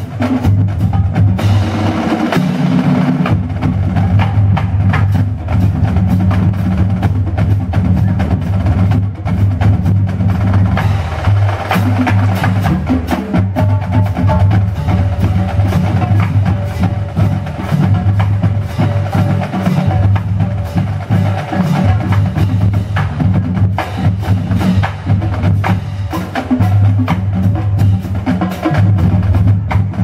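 Marching drumline playing a cadence together on snare drums, tenor drums, marching bass drums and cymbals: continuous loud drumming with rolls.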